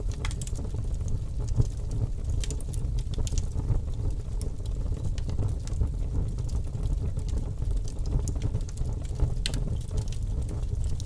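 Steady low rumble with irregular sharp crackles and clicks scattered over it.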